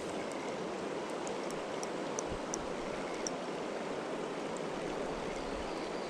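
River water running over rocky shallows, a steady rushing hiss, with a few faint, short high ticks scattered through it.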